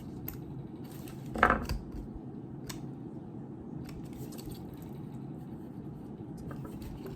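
A few light clicks and taps of small objects being handled, with one slightly louder short rustle about a second and a half in, over a steady low hum.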